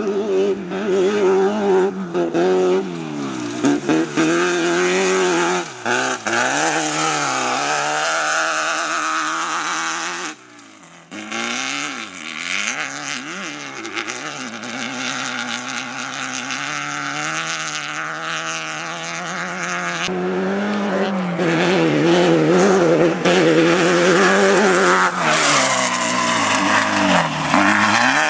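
Air-cooled VW 1776 cc engine of a class 12 off-road race car running hard, its pitch climbing and falling again and again as it revs through the gears and lets off. The sound drops out briefly about ten seconds in, then picks up again.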